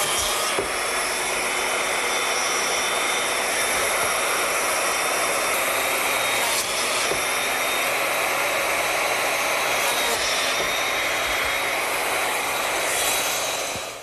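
Benchtop biscuit joiner running: its belt-driven blade gives a steady high whine as it is plunged into board edges to cut biscuit slots. The sound cuts off near the end.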